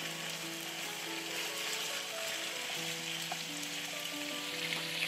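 Pork belly pieces sizzling steadily as they pan-fry in oil over medium-low heat, with soft background music of held notes.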